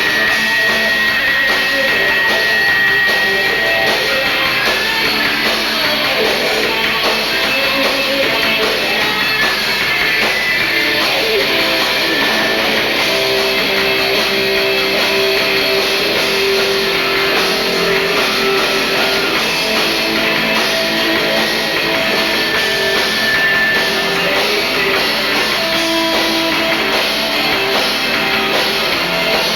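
Band playing a rock song live, with guitar and drum kit, through a continuous stretch without a break.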